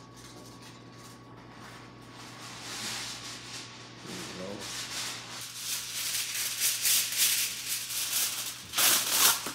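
Aluminum foil being crinkled and folded by hand, joining two sheets into a steam pouch. A dense crackling that builds up after the first couple of seconds and is loudest near the end.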